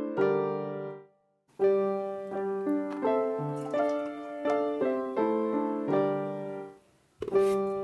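Background music: a light piano-style keyboard melody of short, decaying notes, which drops out briefly about a second in and again near the end before starting over.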